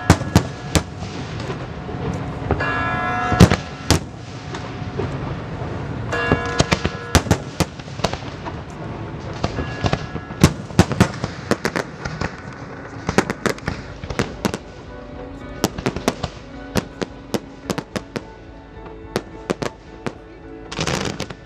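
Aerial fireworks display: shells bursting in many sharp, irregular bangs, the loudest about three and a half seconds in, with music playing underneath.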